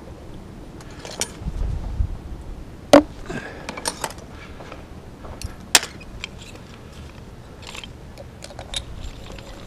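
Scattered clicks and knocks of hand tools being handled during layout work, with two sharp knocks about three seconds and six seconds in.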